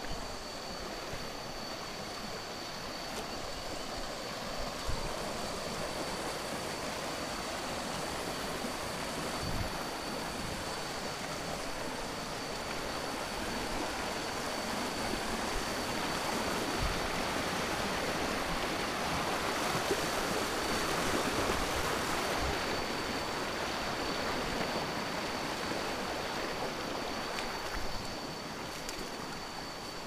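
Shallow rocky stream rushing over small rapids, a steady water noise that grows somewhat louder about two-thirds of the way through, with a thin steady high tone alongside it.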